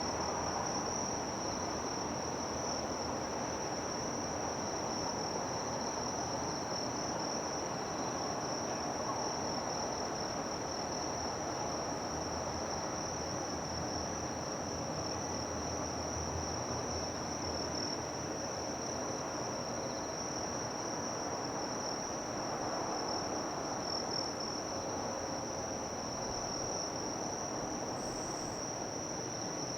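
Insects trilling in one steady, unbroken high-pitched tone, over a low, even background rumble.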